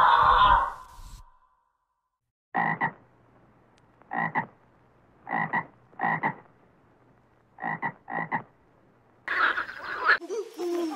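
A snatch of music fades out in the first second. Then a frog croaks six short times, singly and in close pairs, with quiet between. A different, denser sound starts near the end.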